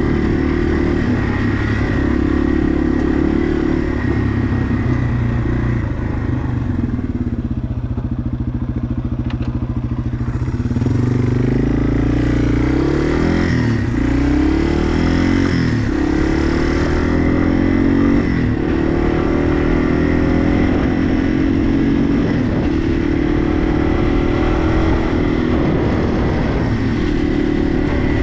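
Yamaha TW200's single-cylinder four-stroke engine running at low revs. About ten seconds in, the revs climb and drop back several times as it shifts up through the gears, then it settles into a steady cruise.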